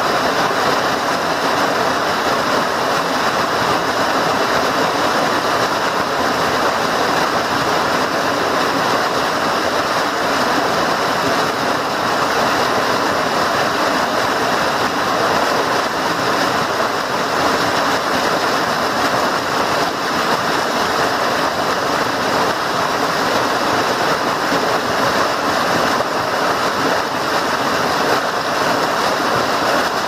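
A small waterfall pouring down over smooth rock boulders: a loud, steady rush of water.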